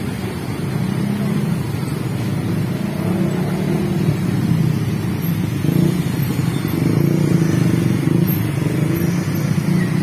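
Many motorcycle and scooter engines running together as traffic pulls away over a level crossing, overlapping into a steady drone that grows a little louder.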